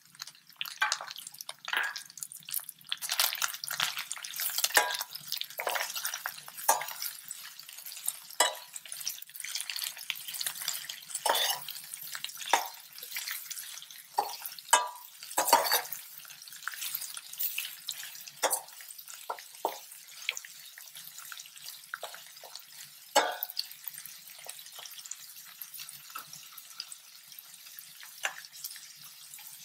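Metal ladle stirring chicken, peppers and onions in a stainless steel pan, with irregular scrapes and clinks against the pan over a light frying sizzle. The strokes come thick and fast at first and thin out in the last third.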